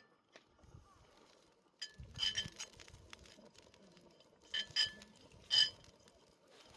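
Kitchenware clinking: a handful of sharp ringing clinks about two seconds in, two more near the middle, and the loudest single clink near the end, each ringing briefly at the same few pitches.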